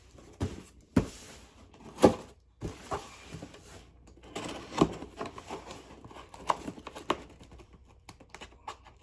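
A package being opened and handled by hand: irregular clicks, taps and knocks with some rustling, the sharpest knocks about one and two seconds in.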